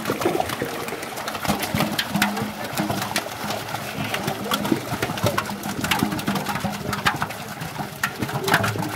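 Pond water splashing and sloshing as fish thrash in a seine net and are picked out by hand, with many irregular sharp splashes.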